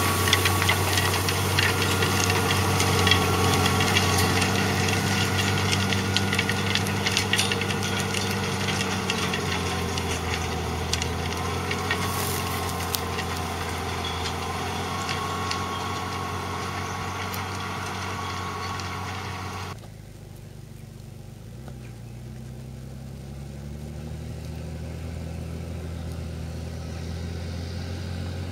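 Valtra T151 tractor's 6.6-litre six-cylinder diesel engine running steadily, slowly growing fainter. About twenty seconds in, the sound drops suddenly and becomes quieter and more distant. The engine pitch then rises a little and the sound slowly grows louder again.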